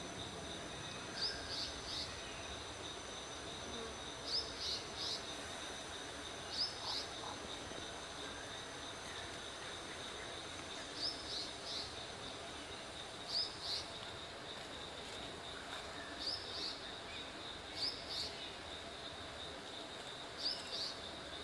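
Forest insects' steady high-pitched drone, with short high chirps in quick pairs and triplets standing out about every two to three seconds.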